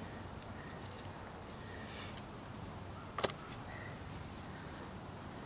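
Steady high-pitched insect chirping, about three short chirps a second, with one sharp click about three seconds in.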